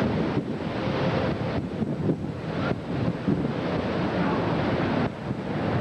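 Strong storm wind buffeting the microphone: a dense, gusting rushing noise that dips briefly a few times.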